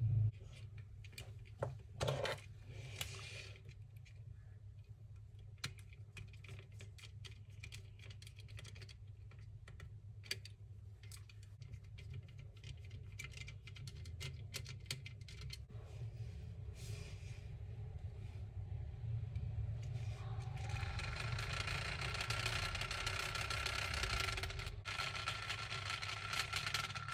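Small plastic clicks and knocks as the plastic chassis, gearbox and wheels of a toy RC car are handled and fitted together, over a steady low hum. Near the end a louder, even hiss rises for about five seconds.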